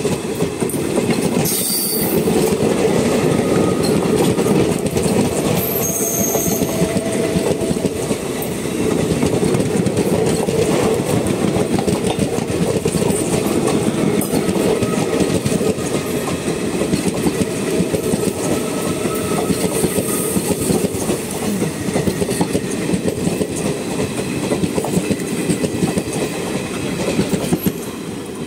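Passenger express coaches rolling past at speed close by: a steady loud rumble with the wheels clattering over rail joints. A brief high squeal comes about six seconds in, and the sound falls away near the end as the last coach, a luggage van, goes by.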